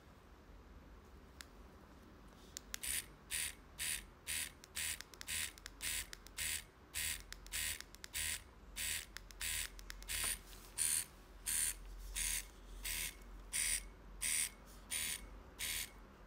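Wireless pen tattoo machine running in dot work mode: the motor buzzes in short, even pulses, about two a second, starting a few seconds in.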